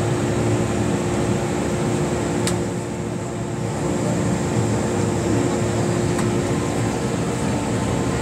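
Steady hum of an MTR Tsuen Wan Line train car's ventilation and electrical equipment while it stands at a station platform, with a couple of light clicks. The train starts to pull away near the end.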